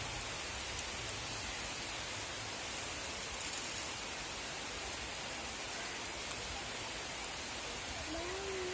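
Heavy rain falling steadily, an even hiss with no let-up. A faint short call rises and falls once near the end.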